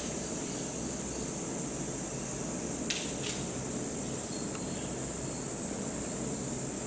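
Steady hum and high hiss of ventilation fans, with two sharp clicks about three seconds in.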